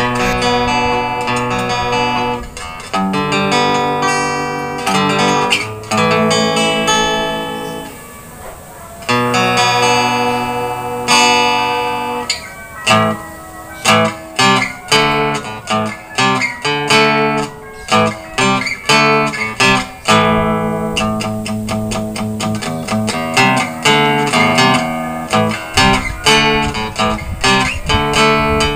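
Acoustic-electric guitar played through a small Signature practice amplifier on its clean channel: picked single notes and chords forming a melody, with a short pause about eight seconds in.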